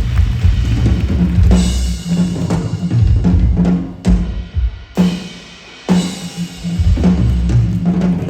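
Live percussion show music: a drum kit with heavy bass drum and snare over a repeating bass note. It breaks off for about two seconds midway, then the drumming comes back in.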